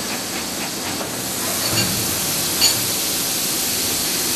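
Muratec Murata MW400 CNC lathe running inside its enclosure: a steady hiss, with two short sharp clicks about two seconds in and again a second later.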